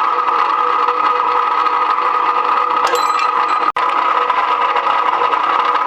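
Electric rebar cutting machine (GQ-series steel bar cutter) running steadily, its motor and drive giving an even mechanical hum, with a brief metallic clatter about three seconds in.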